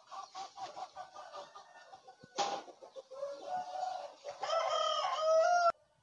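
A rooster crowing loudly about four seconds in, cut off abruptly just before the end, with chickens clucking before it and a brief sharp noise about two and a half seconds in.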